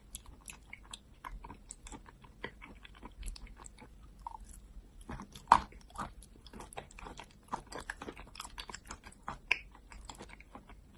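Close-miked mouth sounds of eating thick wet clay paste: sticky smacking and chewing in a dense, irregular run of small clicks, with one sharper snap about five and a half seconds in.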